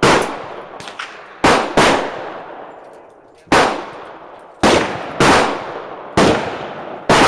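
Gunshots at a shooting range: about eight loud cracks at uneven intervals, with two fainter ones about a second in, each followed by a long echoing decay. Several shooters are firing in other lanes.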